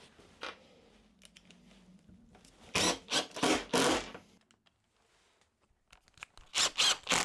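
Cordless impact driver winding threaded inserts into a softwood frame, working in short bursts: a run of about four about three seconds in and more near the end.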